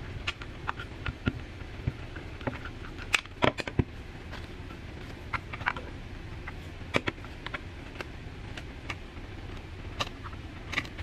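Hands handling plastic packaging on a desk: scattered light clicks, taps and rustles as a black box with a clear plastic cover is opened and its parts lifted out, with a few sharper clacks.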